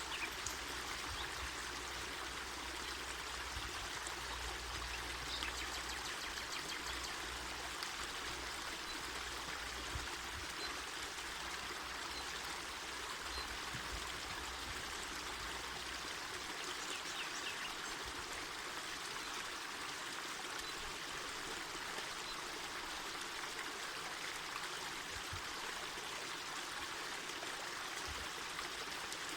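Mountain forest river flowing steadily, a constant rushing of water. A low rumble underneath drops away about halfway through.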